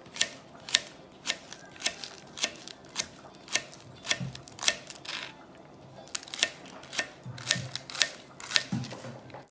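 Knife slicing a green onion into rounds, each stroke ending in a sharp tap on the cutting board, about two cuts a second with a short pause around the middle.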